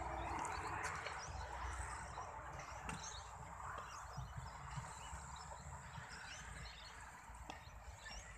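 Small kick scooter's wheels rolling over a concrete skate-park surface: a rough hiss that is loudest about a second in and fades as the scooter moves away, with a few light clicks.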